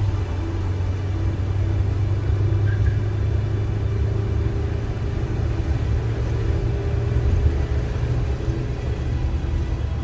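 Steady low rumble of a car driving at an even speed, heard from inside the cabin: road and engine drone with faint steady hums over it.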